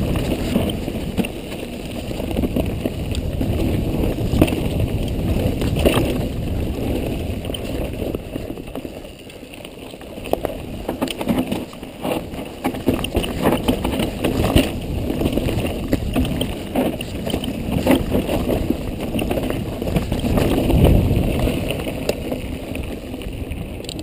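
Mountain bike riding a dirt woodland trail: tyre rumble and wind buffeting the microphone, with frequent knocks and rattles as the bike goes over bumps and roots. It drops quieter for a couple of seconds about ten seconds in.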